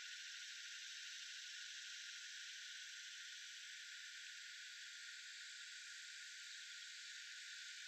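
Faint, steady high-pitched hiss of outdoor background noise, with no distinct calls or knocks in it.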